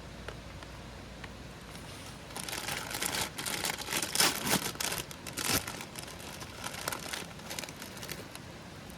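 Crinkling and rustling handling noise, a dense run of sharp crackles and scrapes from about two seconds in to about six seconds, then a few scattered ones.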